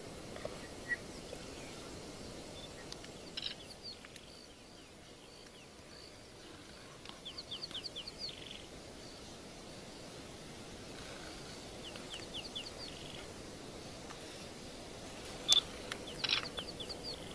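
Steady hiss of open bush with a bird calling twice, each call a short, quick run of high notes. A sharp click near the end is the loudest sound.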